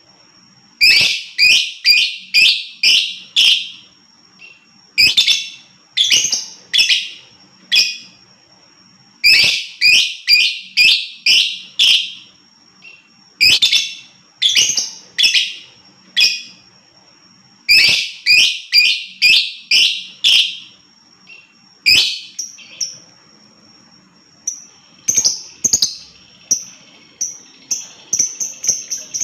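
Lovebird (Agapornis) giving shrill chirping calls in quick runs of four to eight notes, the runs repeating every few seconds. A thin steady high tone sounds behind them throughout, and a faint chirring joins near the end.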